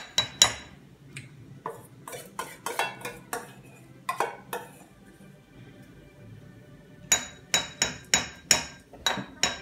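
Metal spoon clinking and scraping against a stainless-steel mixing bowl as mixture is spooned out: a string of sharp clinks with a brief ring. They come in a few scattered groups, then a quick run of about eight taps near the end.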